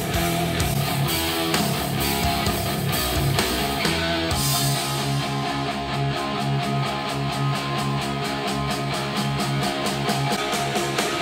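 A guitar-driven song with a steady beat played back through KRK Rokit 5 G4 studio monitors and picked up by a microphone in the room. About four seconds in, playback switches to JBL 104 monitors, and the highest treble is noticeably weaker from then on.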